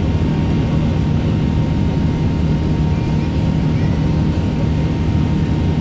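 Steady cabin noise of an Airbus A380 climbing after takeoff, heard from a window seat: the low rumble of its jet engines and rushing air, with a steady low hum running through it.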